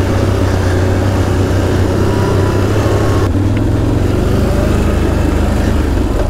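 ATV engine running steadily at low speed, a deep rumble, while riding a slippery mud track.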